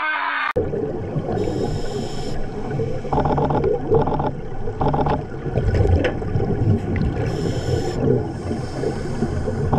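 Muffled underwater sound of a scuba diver's breathing: regulator bubbles gurgling continuously, with two brief hissing breaths.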